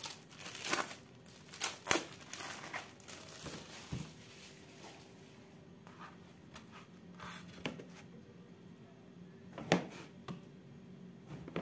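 Thin plastic bag crinkling as a block of tempe is pulled out of it, then a few light taps as the block is set on the cutting board. Near the end, a sharp knock as a knife cuts through the tempe onto the board.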